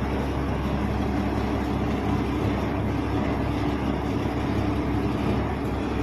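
Amrindra 9200 combine harvester's diesel engine running at a steady speed, an even low drone that does not change.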